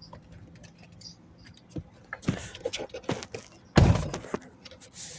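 Clicks and knocks of a clipped-in plastic cabin air filter cover and tools being handled and pried at, getting busier about two seconds in, with one loud thunk a little before four seconds in.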